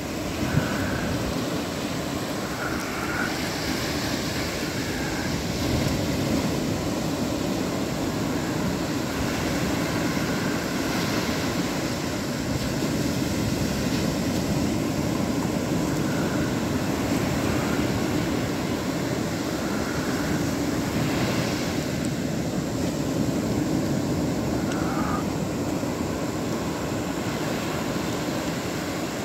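Large aluminium stockpot of pipi soup boiling hard over a portable gas stove: a steady rushing, bubbling noise.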